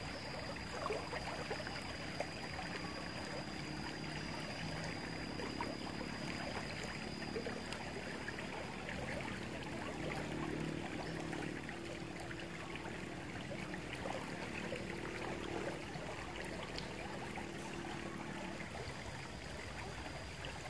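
Shallow river flowing over stones and gravel: a steady rushing and trickling of water.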